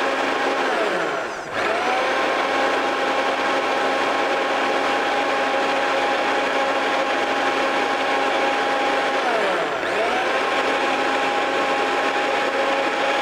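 Countertop electric blender grinding chopped cucumber into a smooth purée, its motor running with a steady whine. The motor winds down and spins back up about a second in and again near the ten-second mark.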